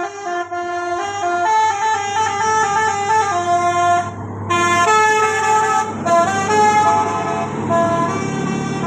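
A bus's telolet horn, a multi-tone air horn, playing a tune of quick stepping notes with a brief pause about four seconds in.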